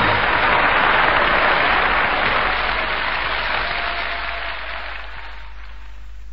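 Studio audience applauding after a musical number, the clapping dying away gradually over about five seconds, over a steady low hum.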